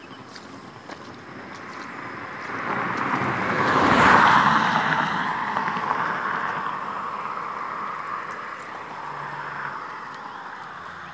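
A road vehicle passing: its tyre and engine noise swells, peaks about four seconds in, then fades away slowly.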